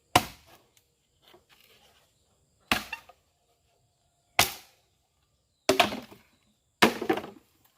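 A heavy cleaver forged from a car leaf spring chopping down hard, in five bouts of blows a second or more apart, some with a quick second or third chop following.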